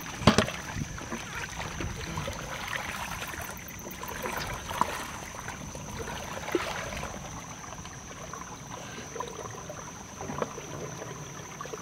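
Muddy water splashing and running in a flooded trench as a long PVC pipe is worked into it by hand, with a couple of sharp knocks just after the start and scattered small splashes after.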